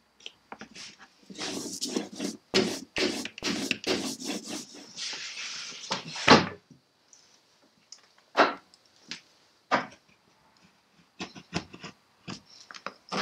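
Lino-cutting gouge scraping and clicking as it carves a linoleum block: a dense run of cuts and a sharp knock about six seconds in, then scattered single clicks.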